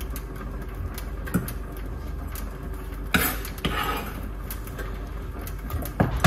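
Off-camera kitchen handling noises over a low steady hum: a brief rustle about three seconds in, another just after it, and a sharp knock near the end.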